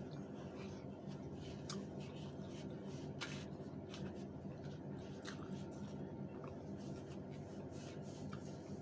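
Eating sounds: scattered soft clicks and smacks of chewing and of food being picked from a small bowl, over a steady low hum.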